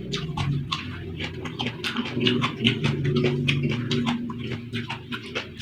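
Close-up wet chewing and lip-smacking from a person eating fried instant noodles and stir-fried water spinach, many quick mouth clicks a second, over a low steady hum.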